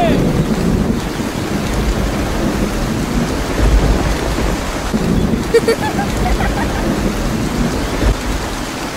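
Heavy rain falling steadily, with low thunder rumbling several times underneath.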